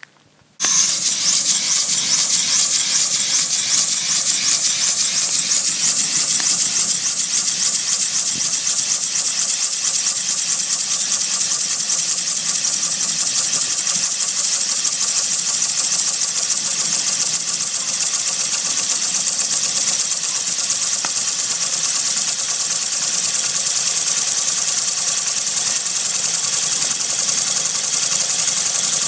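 Homemade model steam engine with a single power piston and flywheel, running steadily on steam from a propane-tank boiler. A loud, steady hiss of steam carries a fast, even beat of the strokes. It starts abruptly about half a second in.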